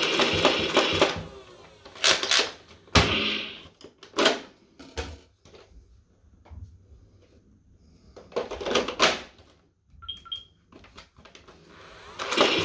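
A Nerf M41-A pulse rifle fires full-auto, a rapid even rattle of darts, and runs dry about a second in. Plastic magazine-change clacks and knocks follow, then two short electronic beeps about ten seconds in. Full-auto firing starts again just before the end.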